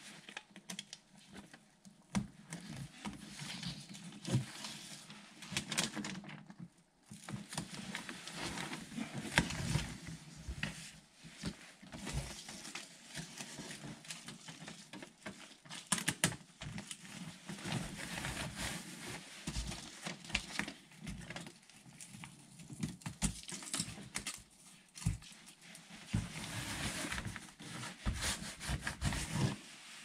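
Irregular knocks, taps and rustling of hands working with tools and materials at close range, with no steady rhythm.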